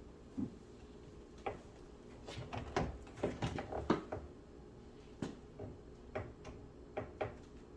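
Parts of a BMW X6 rear door being handled and fitted back together: a string of light clicks and taps, busiest between about two and four seconds in, then single clicks every half second or so.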